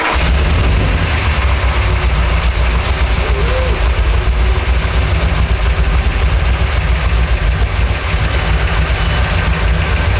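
Powerboat inboard engines idling with a loud, deep, steady rumble.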